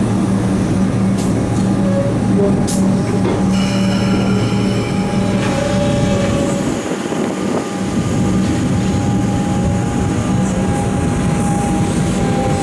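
Metro Trains Melbourne electric suburban train moving along the platform: a steady electric traction hum with a held low tone and a higher whine. A cluster of high squealing tones comes about four seconds in.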